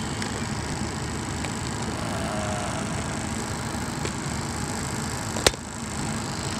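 Vehicle engine running steadily, heard from inside the cab, with one sharp click about five and a half seconds in.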